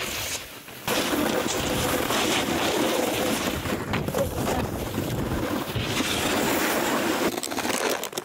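Steady rushing, scraping noise of a snowboard riding over snow and sliding along a box feature, with wind buffeting the microphone; it starts suddenly about a second in and drops off near the end.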